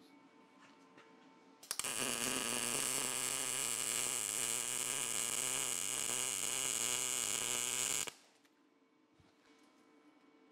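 MIG welder arc welding a steel tray frame: one continuous weld that starts abruptly about two seconds in, runs at an even level for about six seconds and cuts off sharply. A faint hum is heard before and after.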